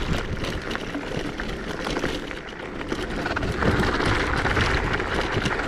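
Zero 10X electric scooter ridden over a gravel track: steady tyre and riding noise with many small clicks and rattles, and wind on the microphone. It gets louder a little past halfway.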